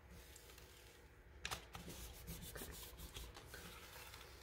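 Faint rustle of a sheet of paper being peeled off a gel printing plate to pull a print, with a sharp click about one and a half seconds in and light crackling for a couple of seconds after.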